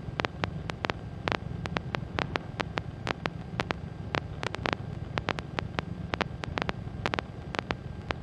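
Skyranger microlight's engine as a faint, steady low drone, with many irregular sharp clicks on top, several a second.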